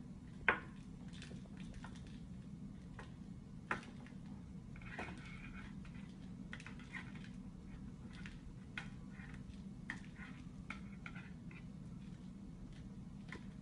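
Scattered light taps and rustles as a kitten bats at a wand toy's pom-pom and the wand moves across the upholstered bench, with one sharper click about half a second in, over a steady low hum.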